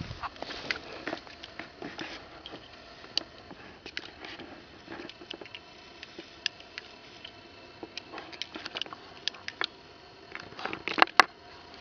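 Handling of a Colt Single Action Army revolver between shots: a string of small, irregular metallic clicks and rattles, with two sharper clicks near the end.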